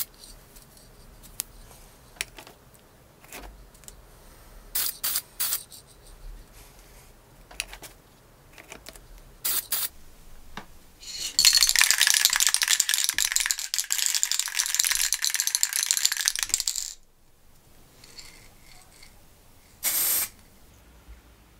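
Aerosol spray-paint can used in short hissing bursts, several in a row, with a long loud, uneven spell of about five seconds in the middle.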